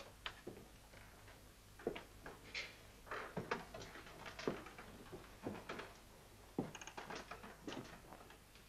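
Faint, irregular taps and knocks of people moving about a classroom with wooden desks and benches, a few each second, over a steady low hum.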